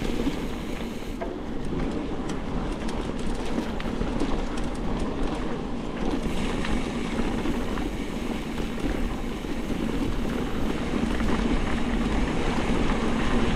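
Mountain bike rolling along with steady tyre noise and the rattle of the bike over rough ground.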